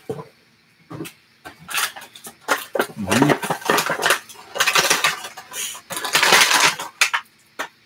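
Hands working at a hard-to-open plastic toy package: irregular crinkling, clicks and rattles of plastic, busiest a little past the middle.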